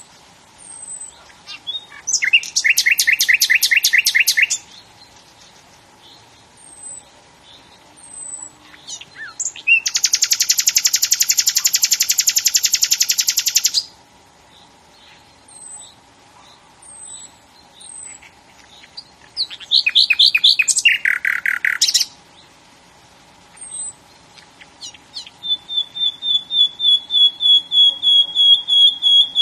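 A songbird singing: several loud, rapid trilled phrases with pauses between them, filled by soft high chirps. One long buzzy trill near the middle lasts about four seconds, and near the end comes a run of quick repeated notes.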